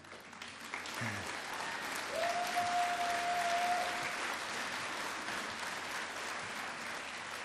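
Audience applauding in a large room, swelling over the first couple of seconds and holding steady, with one long held call from someone in the crowd about two seconds in.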